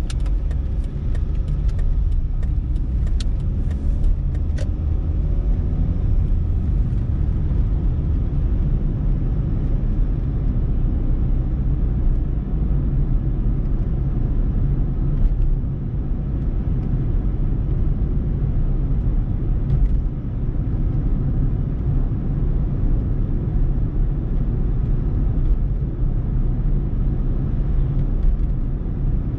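Car running on the road, heard from inside the cabin as a steady low engine and tyre rumble. In the first few seconds there are light clicks, and the engine note rises as the car pulls away from a stop.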